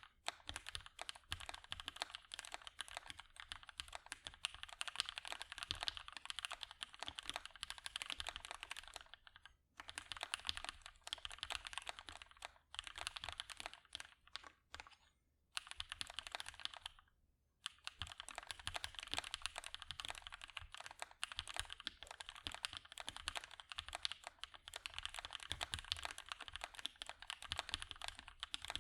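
Continuous typing on a custom mechanical keyboard with lubed and filmed Gateron Hippo switches, GMK keycaps and a POM plate: a dense, fast patter of keystrokes, broken by short pauses about ten seconds in and again around fifteen to seventeen seconds.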